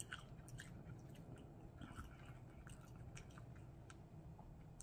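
Faint, close-miked chewing, with soft mouth clicks scattered through and a slightly sharper click near the end.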